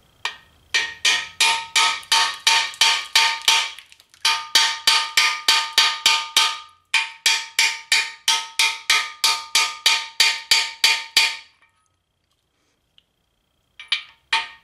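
Hammer blows on a socket-and-extension driver, setting a freeze plug into a Chevy 350 cast-iron engine block. Runs of sharp, ringing metal strikes come about three a second. The blows break off briefly about four seconds in, stop for about two seconds near the end, then resume.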